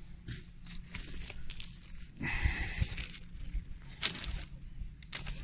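A flat stone being lifted off the ground by hand and the soil, pebbles and dry grass under it disturbed: scraping, rustling and small knocks, with a longer scrape about two seconds in and a sharp click about four seconds in.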